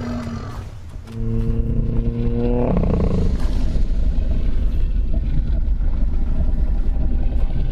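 Triceratops vocalization sound effect: a held, low pitched call that lasts about a second and a half and slides upward at its end. It runs straight into a deep, steady rumbling growl that continues to the end.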